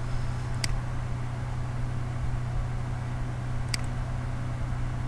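Steady low electrical hum with a hiss of background noise, and two short clicks of a computer mouse, about half a second in and near the end.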